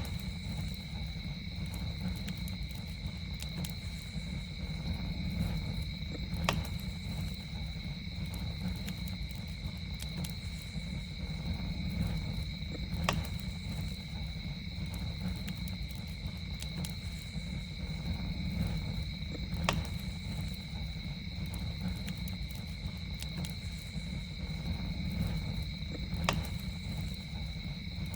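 Campfire crackling with scattered sharp pops, a few louder ones spaced several seconds apart, over a low steady rumble. A steady high two-note insect drone, like crickets, runs beneath it.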